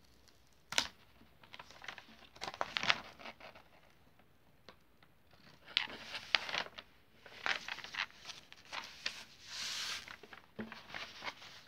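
Diamond painting canvas and its protective cover sheet rustling and crinkling as they are handled and folded back, in several bursts of crisp rustling with a sharp crackle about a second in.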